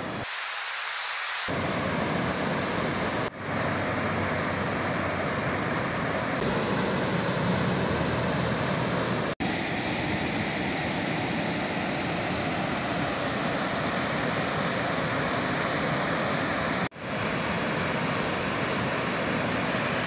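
Waterfall rushing: a steady, even wash of falling water, broken by three brief drop-outs where shots are cut together.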